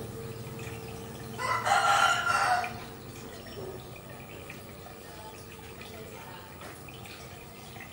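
Aquarium water trickling and dripping steadily under a faint steady hum. About a second and a half in, a loud pitched call cuts across it for about a second.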